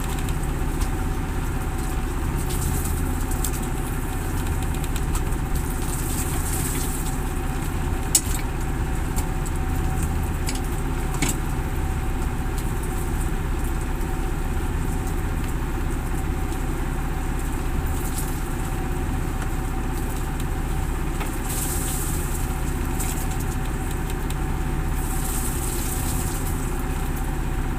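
Fishing boat's engine running steadily, with two short sharp clicks about eight and eleven seconds in.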